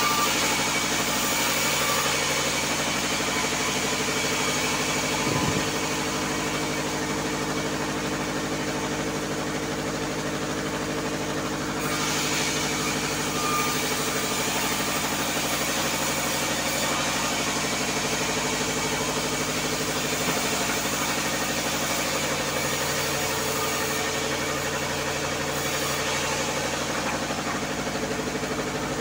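Powered sawmill saw running steadily, with a constant motor drone and the hiss of the blade ripping wooden boards pushed across its table. The cutting hiss grows louder and brighter about twelve seconds in.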